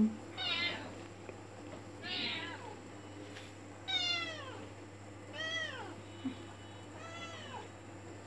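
A cat meowing five times, about one and a half seconds apart, each meow rising then falling away: it is begging for its milk.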